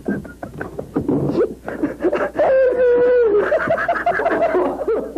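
Two people cackling with exaggerated laughter, with one drawn-out, wavering laugh a little over two seconds in.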